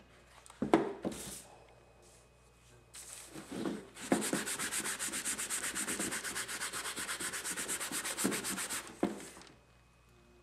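Scotch-Brite pad scuffing the shell of a welding helmet to prep it for paint: rapid back-and-forth rubbing strokes, about eight a second, for about five seconds in the middle. A few knocks from handling the helmet come near the start and just before the end.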